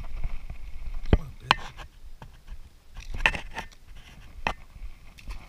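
Handling noise from a freshly caught sunfish and a fly rod and reel: a few scattered sharp clicks and taps, with low wind rumble on the microphone in the first second or so.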